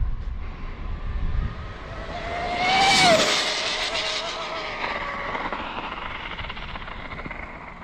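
Arrma Limitless RC speed-run car's brushless electric motor whining past at full throttle. The whine climbs in pitch and loudness to a peak about three seconds in, then drops sharply in pitch and fades as the car goes away.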